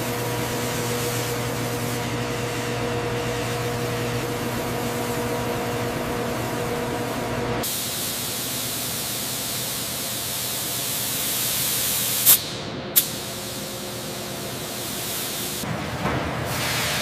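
A hissing spray over a steady machine hum. About halfway through, the sound cuts abruptly to a brighter, louder hiss without the hum, and two sharp clicks come close together near the end.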